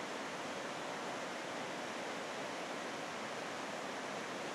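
Steady rushing of a mountain river running through a steep gorge below, an even unbroken noise.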